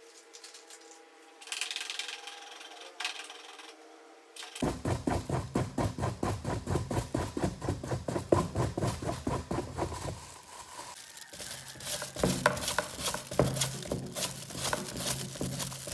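A spoon scrapes and presses a crumbly mixture against the sides of a bowl in quick, regular strokes, about three or four a second, beginning about four seconds in. A few quieter knocks come before it.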